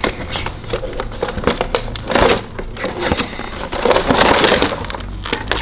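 Action-figure box being handled: cardboard and plastic packaging rustling and crinkling, with small clicks and knocks. The rustling swells twice, about two seconds in and again around four seconds in.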